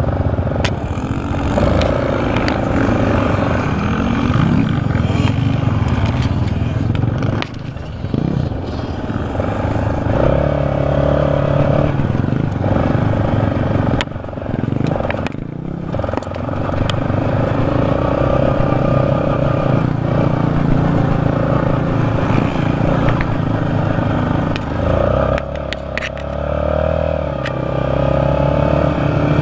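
Yamaha sport ATV engine running under throttle while riding over sand. Its note rises and falls, with a few brief dips where the throttle is let off.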